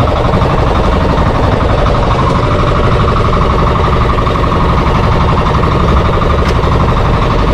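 Fishing boat's engine running steadily at constant speed, with a fast, even pulsing.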